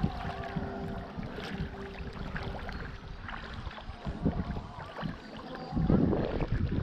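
Water sloshing and splashing around the GoPro, with wind on the microphone and a faint steady hum in the first half; the splashing gets louder near the end.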